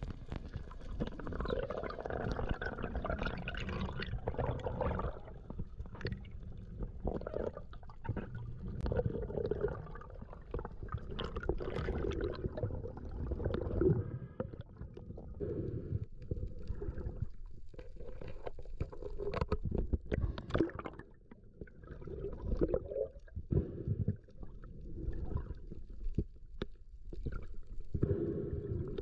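Water gurgling and sloshing around a spearfisher's camera in the sea, in irregular surges with scattered small clicks.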